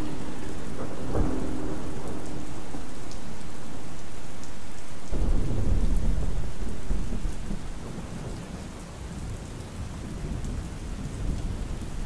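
Steady rain with a sudden low rumble of thunder about five seconds in that dies away over the next few seconds. In the first second, the last of a distant train horn chord, played on a synthesizer, fades out under the rain.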